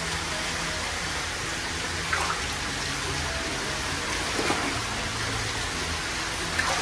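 Steady rush of running water, with a few small splashes as koi are lifted by hand out of a tub of water and slipped into plastic bags, about two seconds apart.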